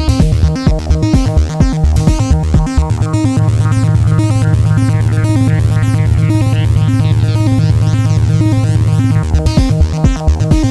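Electronic jam: an Arturia Drumbrute Impact analog drum machine beat under an Arturia Minibrute 2s analog synthesizer sequence. A single low bass note is held for about six seconds from around three seconds in, then the busier pattern returns.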